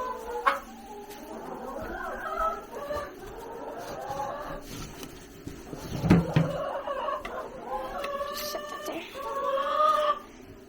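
Hens clucking and calling, with a sharp knock about half a second in and a louder thump about six seconds in.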